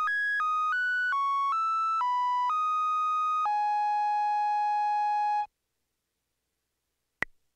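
Casio Casiotone MT-88 keyboard auto-playing the closing melody phrase of a song from its ROM pack: a single reedy electronic tone steps through about nine notes, then holds a final low note that cuts off abruptly about five and a half seconds in. After a couple of seconds of silence a short high beep sounds near the end.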